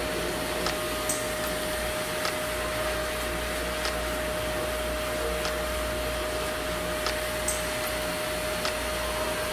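Pet grooming dryer (high-velocity blower) running steadily as its hose nozzle blows air through a wet short-haired cat's coat: a constant rush of air with a steady whine.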